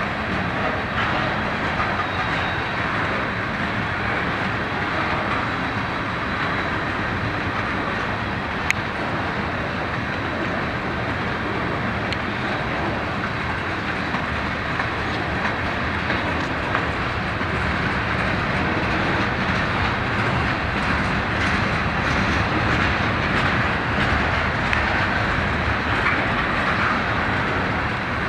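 Freight train of ballast-loaded hopper cars rolling slowly past, a steady rumble of steel wheels on rail. One sharp click about nine seconds in, and a little louder over the last third.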